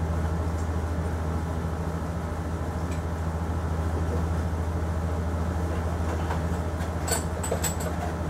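Steady low background hum. Near the end come four quick, sharp clicks as small items are handled on a table.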